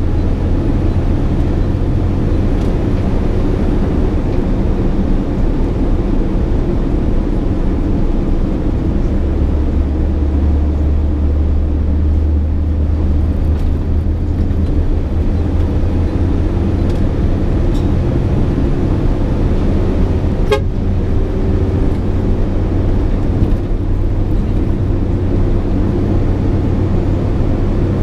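SANY 6x4 dump truck running on the road, heard from inside the cab: a steady low engine drone with road noise, the low note swelling for several seconds near the middle.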